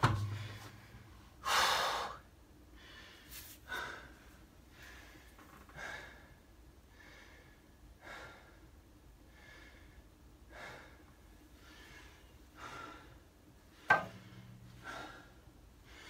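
A man breathing hard and gasping, a dozen or so breaths spaced a second or two apart, as he strains to hold a car gearbox up overhead. A single sharp knock comes about two seconds before the end.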